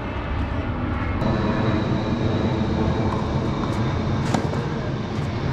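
Steady low engine drone, with a thin high whine joining about a second in and growing slightly louder, and a single sharp knock near the end.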